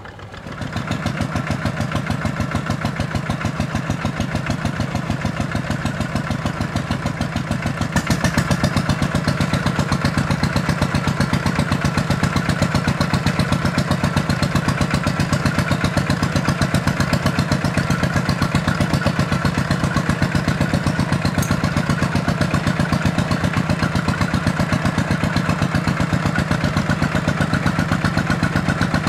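Single-cylinder ZT 155 diesel engine of a two-wheel walking tractor running steadily under load with an even, rapid firing beat, working in paddy mud. It gets louder about a second in and again around eight seconds in.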